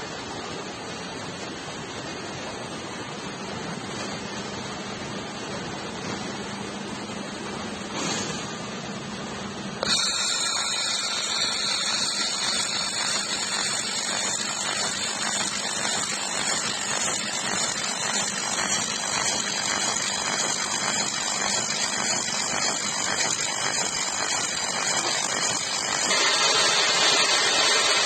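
3 kW laser welding machine with wire feeders running: a steady hum and hiss, joined about ten seconds in by louder crackling and a high whine that last to the end and grow louder near the end.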